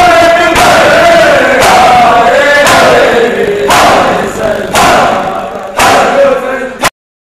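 A group of men doing matam, hands striking bare chests together about once a second, with many men's voices chanting in time over the beats. Everything stops abruptly near the end.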